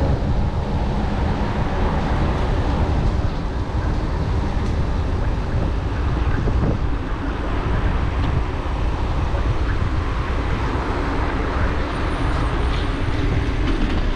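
Steady road traffic noise mixed with a heavy, fluttering low rumble, heard from a bicycle riding alongside a busy road.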